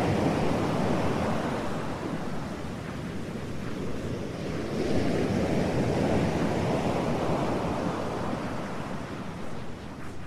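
Ocean surf: a steady rushing noise that swells and eases every few seconds.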